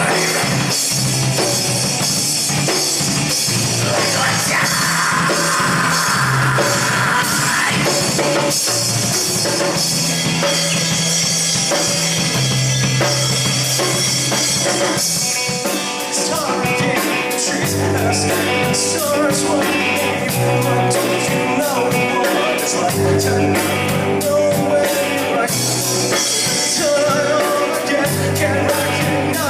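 Live rock band playing, with drum kit, guitar and bass under singing, on a poor-quality recording. About halfway through, the bass line changes to a new pattern.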